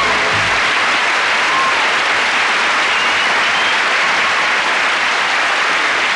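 Audience applauding steadily after a song, the last note of the music dying away right at the start.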